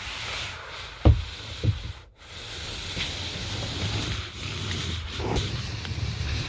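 Steady rubbing, hissing handling noise with two dull knocks, about a second in and again shortly after.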